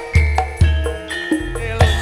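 Live Javanese band music in an instrumental passage: steady held keyboard-like tones over deep drum strokes, about three in two seconds.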